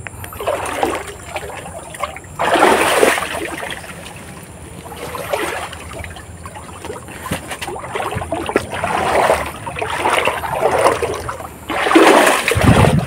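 River water splashing and sloshing as someone works through the shallows hunting for shrimp and small fish. There are louder splashes about two and a half seconds in and again near the end.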